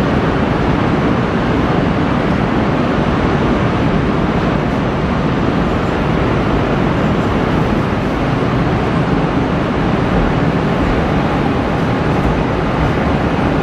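285 series Sunrise Izumo sleeper train running along the platform as it pulls out, a loud, steady rushing noise with no separate clicks or knocks.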